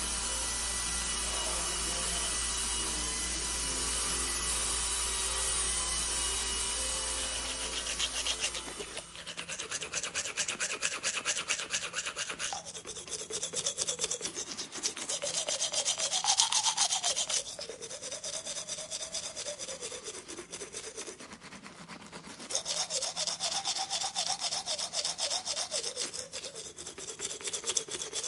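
A steady machine hum made of several held tones over a low drone, which stops about nine seconds in. Rapid scraping or rubbing strokes follow, coming in spells, louder and quieter, to the end.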